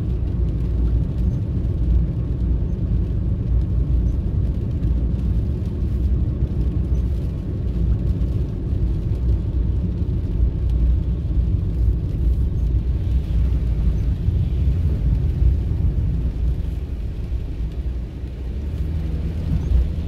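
Steady low rumble of a car's engine and tyres on a wet road, heard from inside the cabin while driving.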